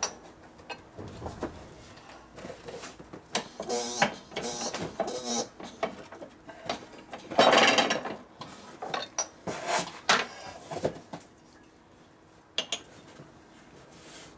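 Small metal parts and hand tools handled against an aluminium engine crankcase: scattered clicks and light knocks, with scraping strokes, the loudest a longer scrape about seven and a half seconds in. The sounds thin out over the last few seconds.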